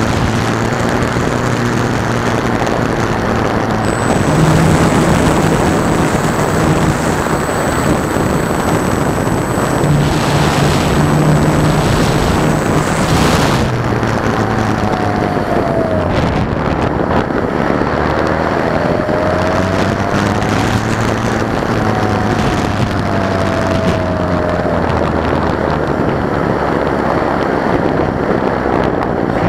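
Electric RC glider's motor and spinning propeller running, heard from an onboard camera with loud wind rush over the microphone. The motor's low hum shifts up and down in pitch in steps.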